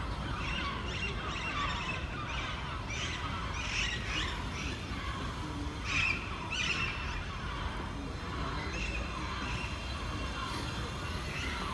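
Many small birds chirping and twittering together in a dense chorus, a little louder about halfway through, over a steady low rumble.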